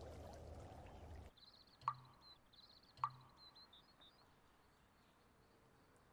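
Faint outdoor ambience, a steady low hiss, that cuts off suddenly about a second in. Small birds then chirp faintly for a couple of seconds, and two sharp ticks sound about a second apart.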